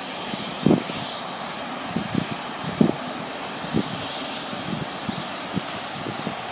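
Twin GE CF34-10E5 turbofans of an Embraer E-190 airliner running on the runway at line-up, heard from a distance as a steady roar, with irregular low thumps over it.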